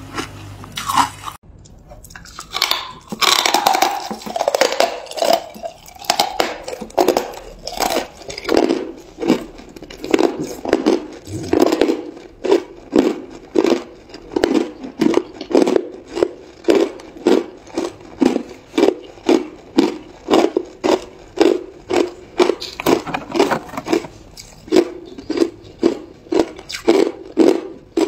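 Chunks of hard ice being chewed and crunched between the teeth, close to the microphone, in a steady rhythm of about two crunches a second.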